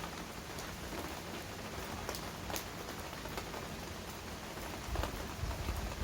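Steady rain falling, with individual drops striking close surfaces as sharp separate taps. About five seconds in a low rumble comes up underneath.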